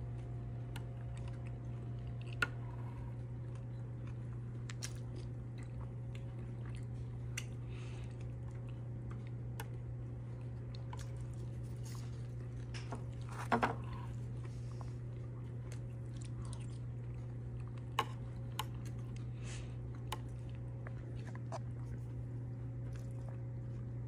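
A person chewing and eating pumpkin cake, with small scattered clicks and a brief louder clatter about halfway through, over a steady low hum.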